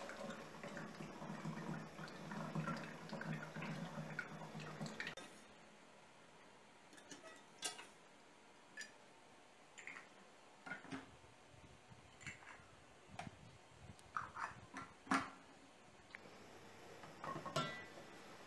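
Thick tomato sauce pouring from a pot through a funnel into a glass bottle for about five seconds. Then a series of short clicks and knocks from metal screw caps and glass bottles as the bottles are capped, the sharpest about two-thirds of the way through.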